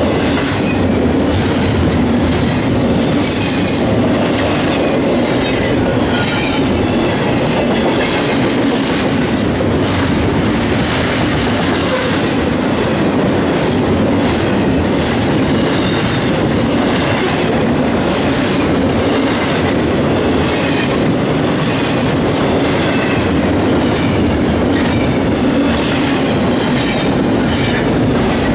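Double-stack container train's well cars rolling past close by: a loud, steady rumble of steel wheels on the rails, with a faint, wavering high squeal from the wheels.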